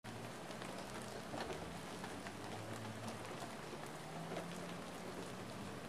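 Steady rain falling, with the patter of single drops striking surfaces close by, over a faint low hum.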